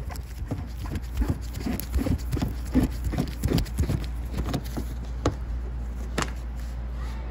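Phillips screwdriver turning a bumper screw out at the wheel arch: a run of irregular clicks and knocks, a few a second, then two single clicks.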